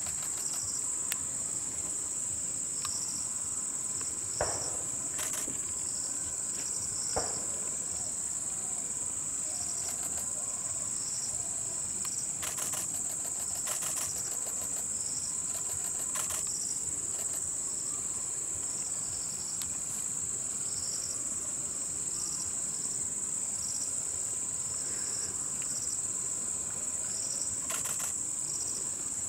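Insect chorus: a steady high-pitched drone, with a second insect calling in short pulses repeated over and over just beneath it. A few faint ticks sound through it.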